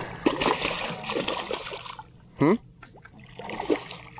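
A hooked snook thrashing and splashing at the water's surface beside a small boat. About halfway through comes a short, loud rising squeak.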